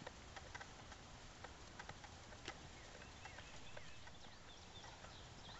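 Faint outdoor background with low rumble, where small birds chirp a few times through the middle and later part, along with a few soft scattered ticks.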